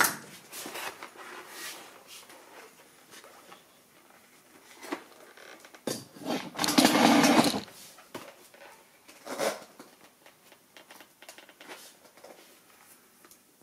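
Handling noises on a workbench: scattered light knocks and rustles, with a louder rustle lasting about two seconds from around six seconds in.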